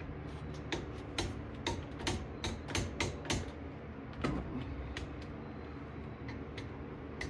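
Ratcheting torque wrench tightening the front brake caliper bolts: a string of sharp, irregular clicks, closely spaced for the first few seconds and sparser after, over a steady low hum.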